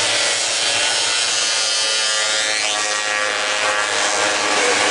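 A pack of youth snowmobiles pulling away from the start line, their small engines at high revs together: a loud, dense buzz of many overlapping engine notes that shift in pitch.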